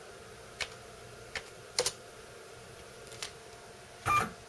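A few separate keystrokes on a computer keyboard, single sharp clicks spaced irregularly with a quick double about two seconds in. A louder, brief sound follows a little after four seconds.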